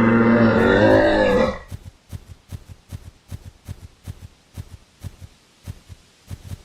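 Rhinoceros giving a long, low bellowing call that breaks off about a second and a half in, followed by a run of short, sharp huffs at about three a second.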